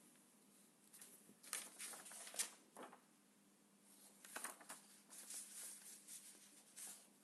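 Near-silent room tone with a low steady hum, broken by a few faint, short rustles and clicks close to the microphone.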